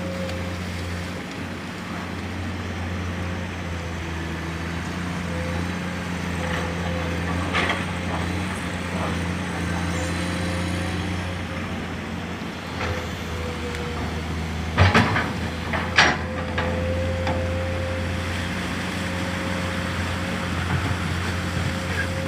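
Steady low mechanical hum with a faint higher tone held above it, and a few sharp knocks about fifteen and sixteen seconds in.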